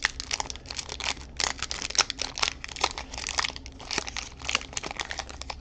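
The foil wrapper of a Pokémon TCG Scarlet & Violet 151 booster pack crinkling and crackling in the hands as it is worked open, in many irregular sharp crackles.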